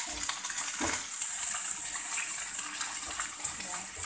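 Thin-sliced beef sizzling in hot oil in a frying pan, a steady hiss, with metal tongs clicking against the pan a couple of times in the first second as the meat is turned.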